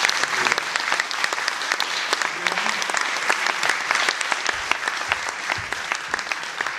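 Audience applauding, many hands clapping together, the applause thinning out near the end.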